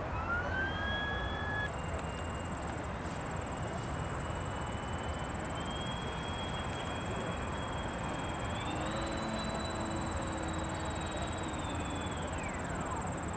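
High-pitched whine of radio-controlled model airplane engines over a steady hiss. The pitch rises about a second in, holds, steps higher past the middle and then glides down near the end.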